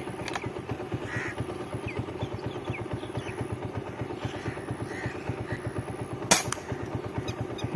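A small engine running steadily with a fast, even low putter, and one sharp click about six seconds in.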